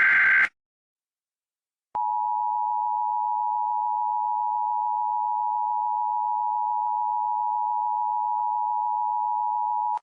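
Emergency Alert System broadcast tones: the tail of a screeching SAME header data burst, a second and a half of silence, then the EAS two-tone attention signal, a steady tone held for about eight seconds that cuts off abruptly at the end.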